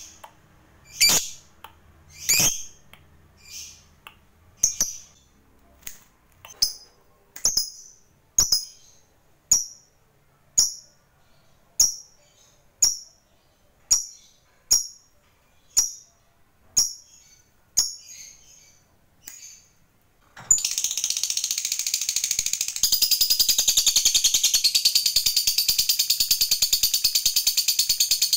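A lovebird calling: short, sharp, high chirps about once a second, then, about twenty seconds in, a long unbroken fast chatter, the 'ngekek panjang' (long chattering song) that lovebird keepers prize, growing louder a couple of seconds later.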